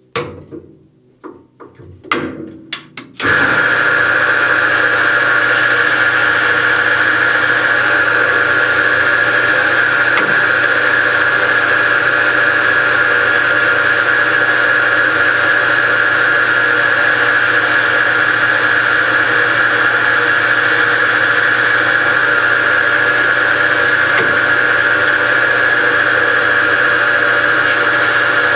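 A few clunks, then about three seconds in the Rambold turret lathe starts and runs steadily with a strong high-pitched whine while it machines a bushing.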